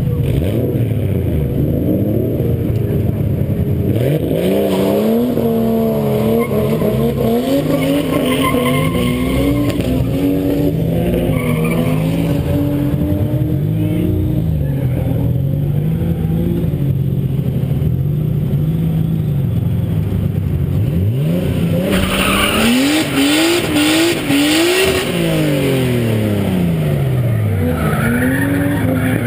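Nissan S14's RB20 straight-six engine running and being revved up and down, with quick climbs and drops in revs. Tyres squeal and skid during a burst of hard revving about three-quarters of the way through.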